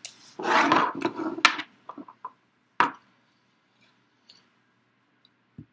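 Handling of vape gear and glass e-juice dropper bottles: a burst of rustling and clinking near the start, then a few sharp clicks and faint ticks of glass and metal parts being put together.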